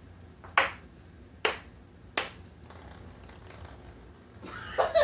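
Ping-pong ball bouncing on a hard table: three sharp clicks, each fainter than the last.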